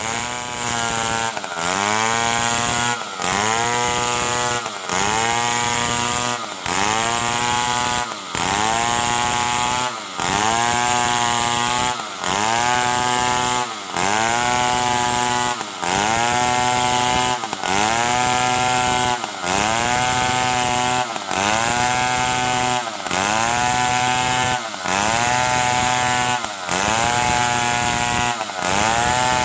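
Stihl 070 two-stroke chainsaw running at high speed. About every two seconds its note drops out briefly and climbs straight back up to a steady high pitch, in an even repeating rhythm.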